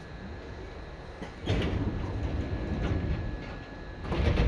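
Seibu 2000 series train car's sliding doors working. There is a sudden loud slide and thud about one and a half seconds in, and a second sharp thud near the end, over the low background noise of the car.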